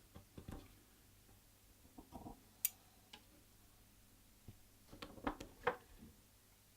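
Scattered small clicks, taps and handling noises: a few near the start, a sharp single click about two and a half seconds in, and a quick run of clicks and knocks near the end.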